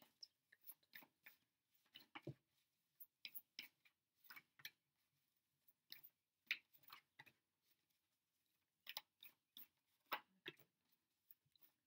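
A deck of tarot cards being shuffled by hand, the stiff cards giving faint, irregular flicks and taps, with a brief pause midway.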